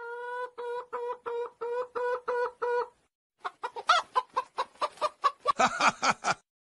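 Clucking in the manner of a hen's egg-laying cackle: a run of about nine even, steady-pitched clucks over three seconds, then after a short pause a faster, louder run of clucks.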